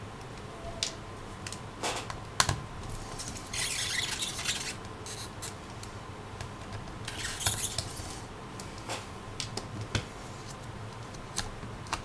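Small clicks and ticks of a screwdriver and screws being worked out of a laptop's hard-drive mounting, with two short scraping rasps, about four and seven seconds in, of metal and plastic rubbing.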